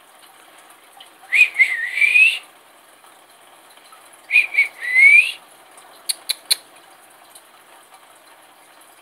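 Two short whistled phrases, each a couple of quick notes followed by a longer rising glide. Three quick clicks come about six seconds in.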